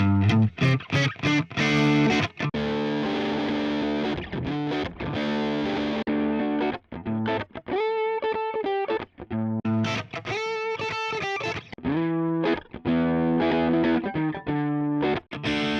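Electric guitar played through an overdrive/distortion preset on an IK Multimedia TONEX MAX amp-modelling pedal: chords and riffs with short stops between phrases. Through the middle the tone turns less saturated, with clearer single notes.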